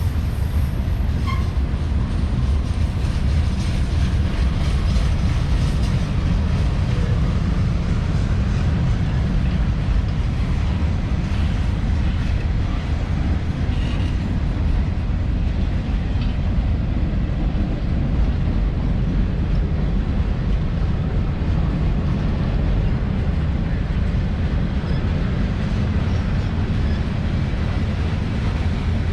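CSX freight train rolling past, a steady rumble of steel wheels on the rails.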